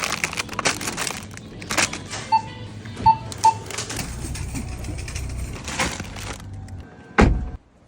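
Groceries and packaging being handled, with repeated clicks, knocks and rustling. Three short electronic beeps come about two to three and a half seconds in, and a heavy thump near the end.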